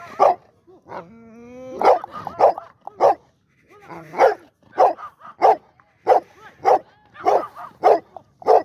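A pit bull-type dog barking repeatedly, about a dozen short, sharp barks at a fairly even pace, with one longer rising whine about a second in.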